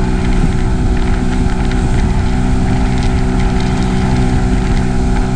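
Outboard motor of an inflatable boat running steadily at cruising speed, its even engine hum over a rush of wake and wind noise.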